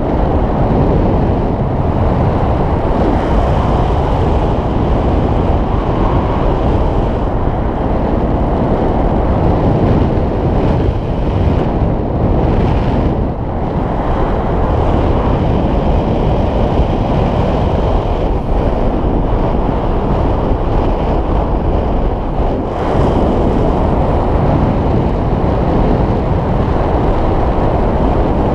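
Airflow of paragliding flight rushing over an onboard camera's microphone: a loud, steady wind noise, easing briefly about 13 seconds in and again near 22 seconds.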